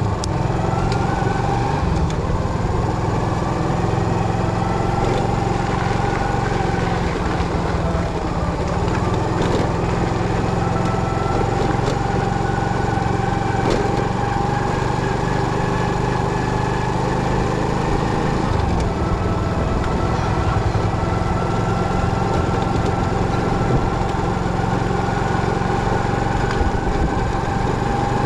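Motorcycle engine running steadily for the whole stretch, its pitch drifting slowly up and down.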